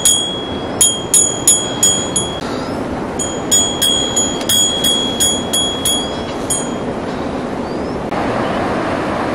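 A small metal bell on a pony's harness jingling in quick strikes about three a second as the pony feeds, in two runs with a short break, stopping about seven seconds in. A steady rushing noise sits underneath and grows louder near the end.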